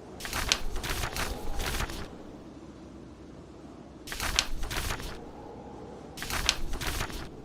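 Book pages being turned, three papery rustles, the first longer with several strokes, over a steady low rush of blizzard wind.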